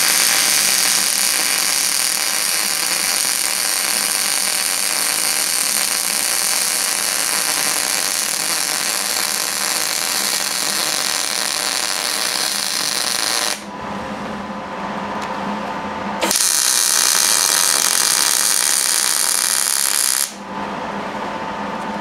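MIG welding arc sizzling as a steel header flange is welded onto a cast iron exhaust manifold. There is one long bead of about thirteen seconds, a pause of two or three seconds with a steady hum, then a second bead of about four seconds.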